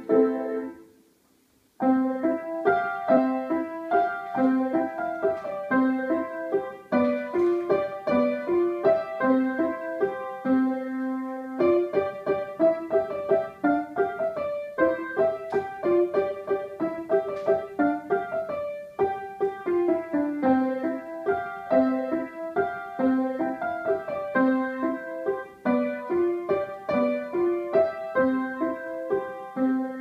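Yamaha upright piano played by a beginner child. The first short piece ends about a second in, and after a brief pause a second piece begins: a steady run of notes over a repeating low note pattern, ending on a held chord near the end.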